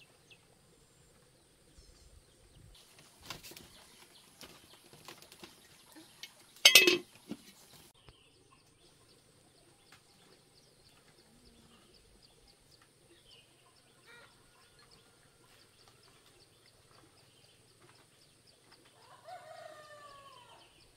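Farmyard animal sounds: a short, loud burst about seven seconds in, weaker strokes a few seconds earlier, and a call that falls in pitch near the end, over a faint steady high hiss.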